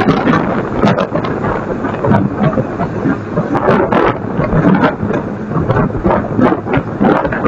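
Garbage truck running, with a loud, dense crackling noise over its engine.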